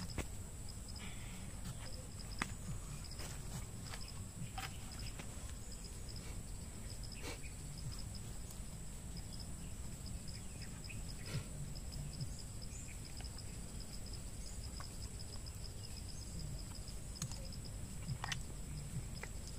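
Insects chirping without a break: a high steady drone with a fast pulsing trill a little lower in pitch, over a low rumble, with scattered clicks and knocks.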